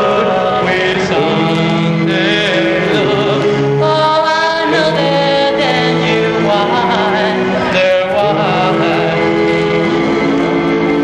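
Doo-wop song: voices singing long held notes in harmony, changing chord every second or two, with a lead voice wavering in vibrato above them.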